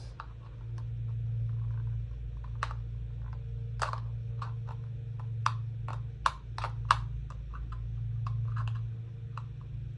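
Irregular small clicks and taps of a plastic handheld talking calculator being handled and worked at, its stuck battery compartment cover being pried at, over a steady low hum.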